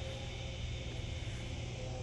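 Steady evening backyard ambience: a constant low hum under an even, high-pitched insect drone.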